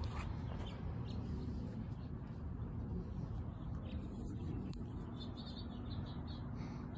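Outdoor background with a steady low rumble and a few faint, short bird chirps about five to six seconds in.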